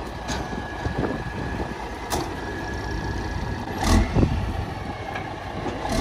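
Semi truck's diesel engine idling, with a louder surge about four seconds in as it is put to work backing toward the trailer. A few short sharp clicks or knocks sound over the running engine.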